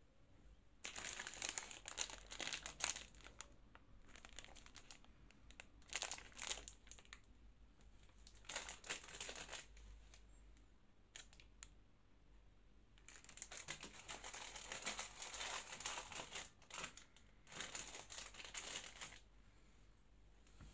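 Plastic wrapper of a Magnum ice cream bar crinkling and tearing as it is pulled open by hand. It comes in irregular bursts, with the longest stretch in the last third.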